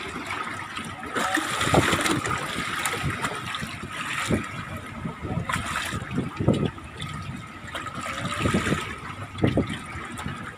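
Choppy sea water sloshing and slapping against the side of a small fishing boat in irregular surges, with a faint steady high whine behind it.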